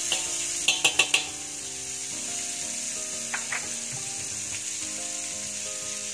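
Margarine melting and sizzling in a hot metal wok, a steady hiss. About a second in come four quick, sharp metallic taps of a spoon against the wok, and two fainter taps a little later.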